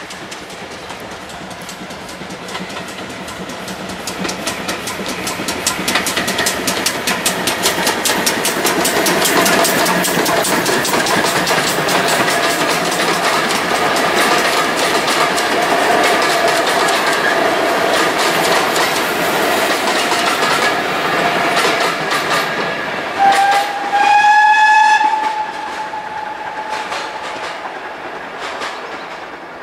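Steam-hauled passenger train running past, its coach wheels clicking rapidly over the rail joints and growing louder as it nears. About 23 s in, the locomotive's steam whistle sounds: a short note, then a longer one of about a second and a half. After that the train fades away.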